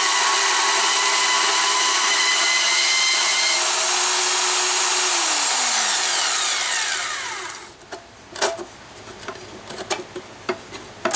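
Portable band saw cutting steel plate, a steady whir with a high metallic whine. About five seconds in the saw is switched off and winds down over a couple of seconds, falling in pitch. A few light clicks and knocks follow as the plate is handled.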